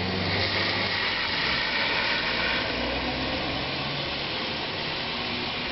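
A vehicle engine idling, heard from inside the car's cabin, under a steady hiss that eases off about three seconds in.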